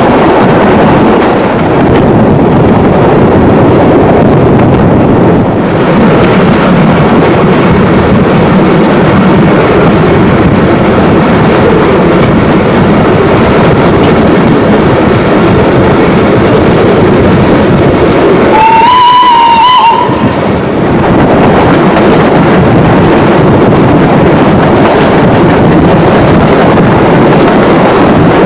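Steam train running, heard from an open carriage window: loud, steady rumble and clatter of the wheels on the track. A bit over two-thirds in, the locomotive's whistle sounds once for about a second.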